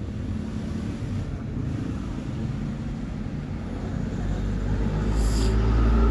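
Low background rumble that swells louder from about four seconds in, with a brief hiss shortly before the end.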